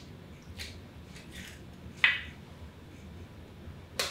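An egg tapped and cracked against a glass baking dish: a few light clicks, with a sharp crack about two seconds in and another near the end.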